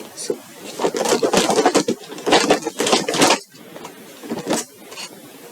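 Packaging being handled: bursts of rustling and crinkling, loudest in the first half, with a short rustle again near the end.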